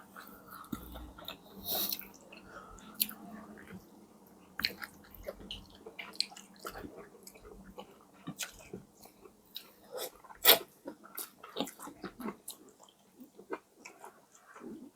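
Close-miked eating: chewing and biting, with wet mouth smacks and sharp clicks scattered irregularly, the loudest about ten seconds in.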